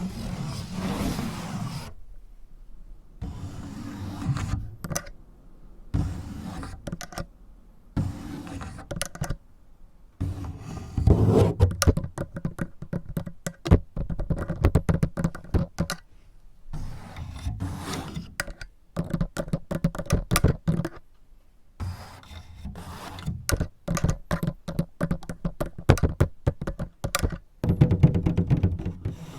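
Fingers fitted with clips tapping and scratching a surface: bursts of scraping broken by quick clicks and knocks, starting and stopping every second or two.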